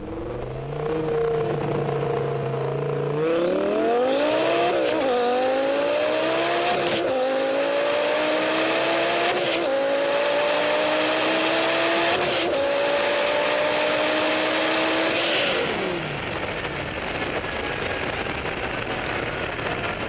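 Twin-turbocharged Lamborghini LP550-2's 5.2-litre V10 pulling hard through the gears. For the first few seconds the note is steady. The engine pitch then climbs and drops back four times, with a sharp crack at each upshift and a high whine rising above the engine. About fifteen seconds in it lifts off and the engine note falls away.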